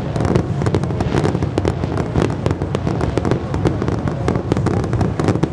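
Aerial fireworks display: shells bursting in quick succession, many bangs and crackles close together over a steady low rumble.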